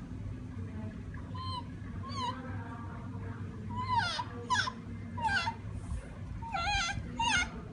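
A young siamang giving a series of about seven short, high-pitched squeaky calls, mostly sliding down in pitch, louder in the second half.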